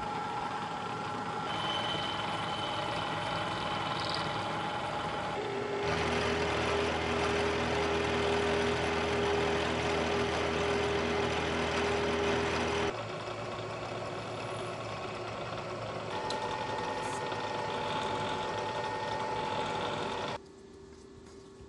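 Vertical milling machine running as an end mill cuts an aluminium block and a small drill bores holes in it, with a steady motor hum. The sound changes abruptly several times between short cuts of machining, and is loudest through the middle.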